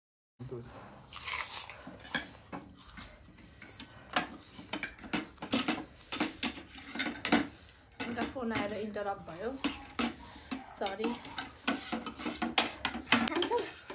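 Eating utensils clinking, tapping and scraping against dishes, in many quick irregular clicks. The sound begins abruptly about half a second in.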